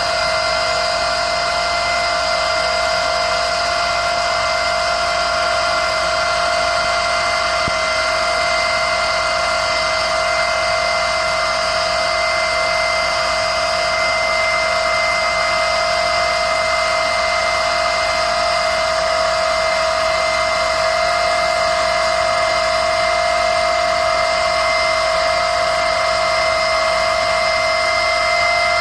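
A power tool's motor running continuously with a steady, unchanging high whine over a hiss.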